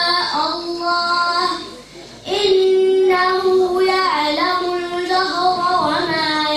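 A young girl chanting Quran recitation with tajweed: long held, melodic notes with ornamented turns in pitch, and a short breath pause about two seconds in.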